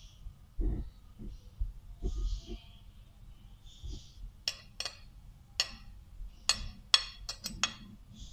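A perforated metal skimmer spoon laying cooked rice onto a glass serving platter: soft thuds and rustle of rice first, then about eight sharp metal-on-glass clinks in the second half.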